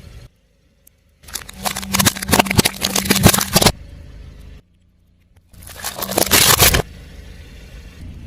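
A car tyre rolling over crunchy objects and crushing them, a dense run of crackling and snapping with a low steady hum underneath. It comes in two crushes: a longer one from about a second in, and a shorter one past the middle, with near-silent gaps between.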